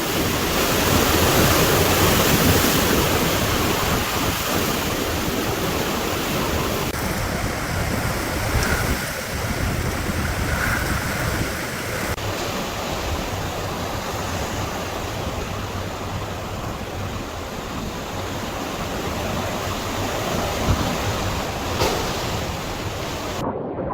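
Hurricane wind and heavy rain: a dense, steady rush of noise, loudest in the first few seconds.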